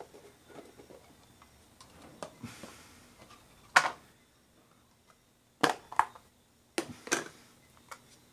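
Plastic food containers and their snap-on lids being pulled open and set down on a wooden workbench: a series of sharp plastic clicks and knocks, the loudest about four seconds in and a cluster of four more between about five and a half and seven seconds.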